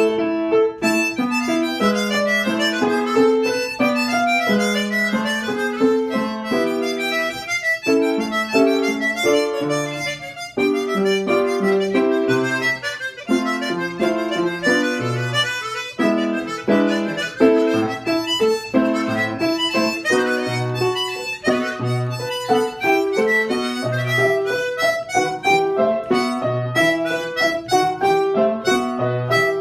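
Harmonica playing fast runs of notes over piano accompaniment, with a low bass note sounding about once a second in the second half.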